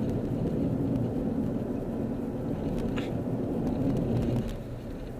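Car engine and road noise heard from inside the cabin: a steady hum over a low rumble that drops away about four and a half seconds in.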